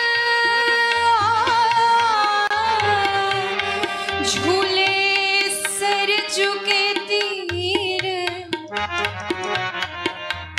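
Indian devotional jhula (swing) song: a sung melody holding a long note that then wavers in ornamented turns, over tabla keeping a steady beat. In the second half the voice drops back and the tabla plays quicker strokes.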